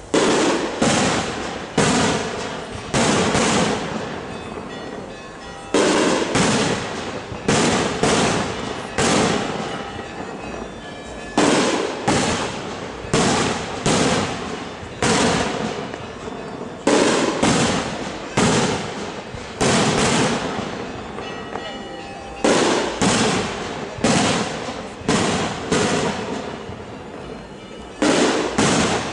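Fireworks: a long, irregular string of loud bangs, about one every second or so, each echoing away before the next.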